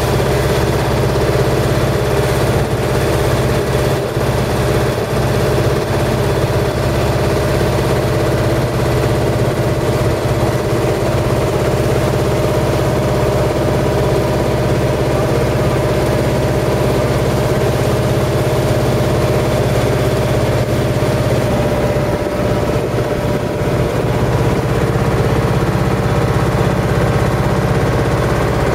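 Boat engine running steadily at a constant speed, an even drone with a steady hum.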